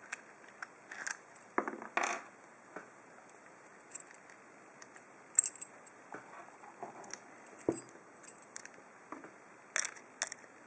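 Scattered light metallic clicks and clinks of small padlock parts being handled, with a cluster about two seconds in and a duller knock about eight seconds in.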